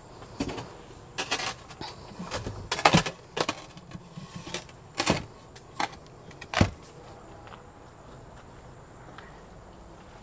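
Large empty planter being carried and set down, a run of knocks and scrapes as it is shuffled into place over the first six or seven seconds, the loudest near the middle. After that only faint background hum.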